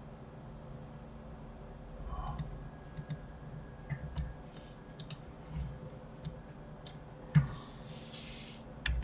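Computer mouse and keyboard clicks: about a dozen sharp single clicks at an irregular pace, starting about two seconds in, with the loudest near the end followed by a brief soft hiss.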